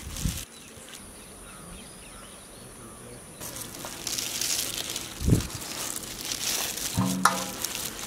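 Plastic-gloved hand rolling a batter-coated ball in dry breadcrumbs: a rustling, crinkling scrape from about three and a half seconds in, with a thump near the middle. Before that, a steady high insect buzz.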